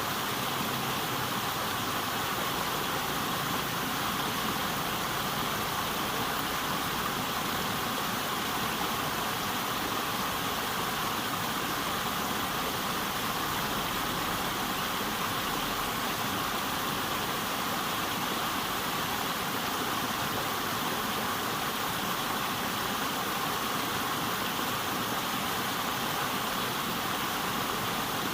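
River water flowing: a steady, even rush with no pauses or distinct events.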